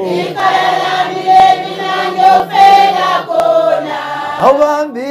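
A group of voices singing together in chorus, holding long sustained notes with a male lead at the microphone.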